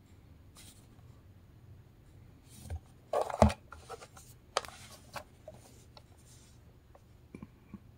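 Handling noise from a plastic RCA portable AM/FM stereo cassette player being turned over in the hand: rubbing and scraping on the casing and a few light clicks, with one sharper knock about three and a half seconds in.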